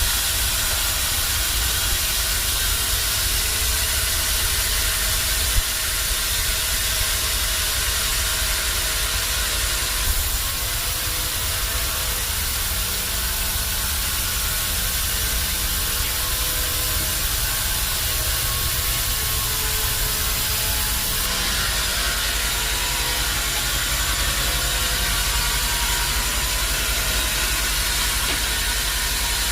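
Band sawmill running steadily: a low machine hum under a loud, even hiss, with a short click about five seconds in.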